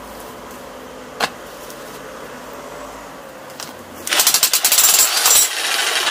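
Steinhaus PRO DH1700 electric demolition hammer starts about four seconds in and pounds its pointed chisel into stone in loud, rapid blows. Before that there is one sharp knock, about a second in.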